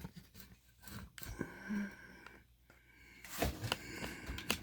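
Handling noise from a camera being set down and repositioned on a surface: scattered light clicks, knocks and scrapes, with a few louder knocks about three and a half seconds in and again near the end.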